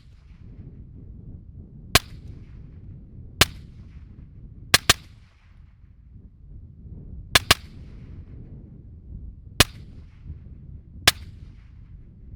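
Suppressed 5.56 rifle fired through an Otter Creek Labs OCM5 suppressor: eight sharp shots, mostly single and a second or so apart, with two quick doubles about a third and two-thirds of the way in. The suppressor has a rather high-pitched report with a distinct 'twang'.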